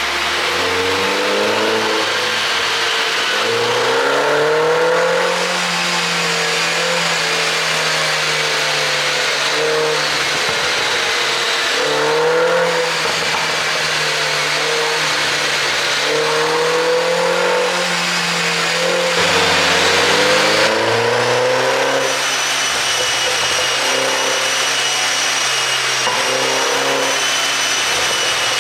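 2013 MINI Cooper S (R56) turbocharged four-cylinder engine idling and being revved up and let back down several times, run with a tune meant to make the exhaust pop on the overrun.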